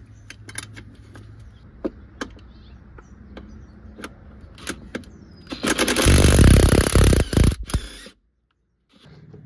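A few light metallic clicks, then, about five and a half seconds in, a cordless impact driver on a long extension and wobble socket hammers loud and fast for about two seconds, with a brief break near the end, loosening a 13 mm through bolt on the intake manifold.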